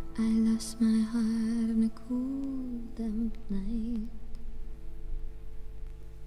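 A female voice humming a slow wordless melody with vibrato over soft music, fading to a quieter stretch about four seconds in.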